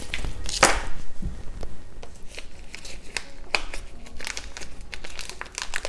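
Clear plastic film on a meat tray being peeled back by gloved hands, crinkling with irregular sharp crackles. The loudest crackle comes about half a second in.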